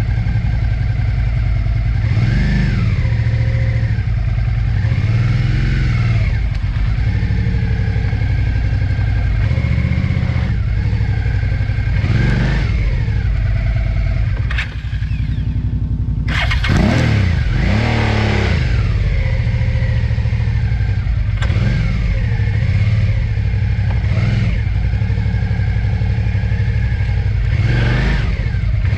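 Suzuki V-Strom 650's V-twin engine pulling at low speed, its pitch rising and falling every few seconds with repeated throttle openings, as the motorcycle is ridden slowly over a slippery, muddy dirt track.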